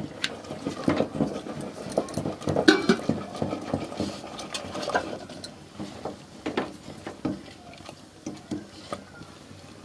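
Wooden dal masher (ghotni) knocking and scraping in an aluminium handi, with irregular clicks and knocks, as cooked spinach dal is churned smooth.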